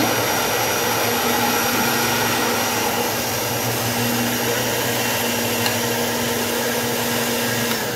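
Countertop electric blender running steadily, blending a pumpkin smoothie; the motor cuts off near the end.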